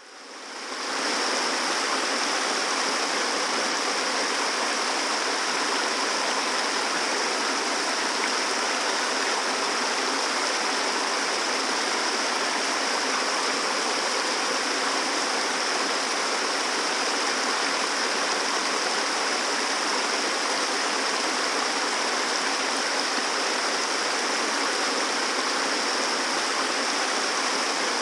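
Water falling and running over an ornamental garden waterfall: a steady, even rush that fades in over the first second.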